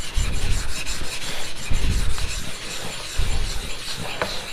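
A small stone rubbed back and forth across a wet whetstone in gritty strokes, about one every second and a half, raising a slurry on its surface.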